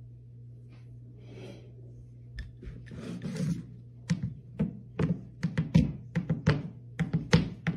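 A cat batting its empty food bowl so it tips and clunks against a wooden floor, starting about halfway in and repeating two or three times a second, a demand for food.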